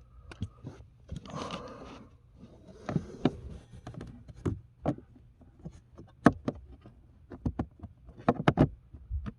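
Irregular sharp clicks, knocks and scraping as hands work a cabin air filter into its housing behind a car's glove box. There is a rustling scrape about a second in, and a quick flurry of knocks near the end.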